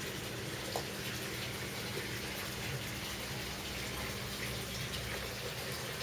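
Water running steadily in a floating-raft aquaponics tank, an even rushing sound over a faint, steady low hum.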